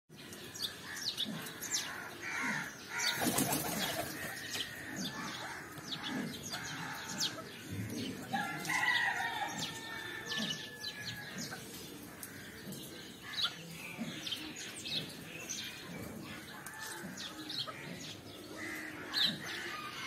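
Aviary bird sounds: many short chirps and calls, with a brief burst of wing flapping about three seconds in and a longer falling call about nine seconds in.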